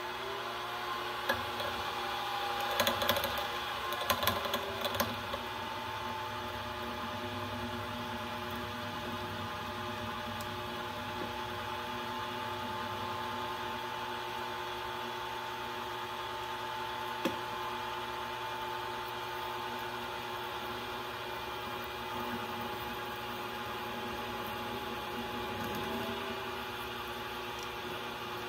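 Small benchtop milling machine's spindle motor running steadily with a whining hum while a drill bit is fed into a steel pin to drill a grease passage. A few sharp clicks and scrapes come about one to five seconds in, and there is a single tick later on.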